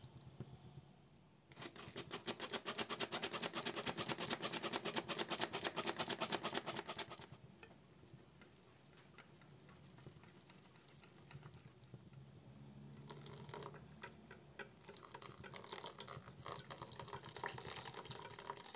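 Wire whisk beating wet pumpkin pancake batter in a bowl, a fast run of splashy strokes. It goes quieter for several seconds while the flour is worked in, then the rapid whisking picks up again near the end as the batter turns smooth.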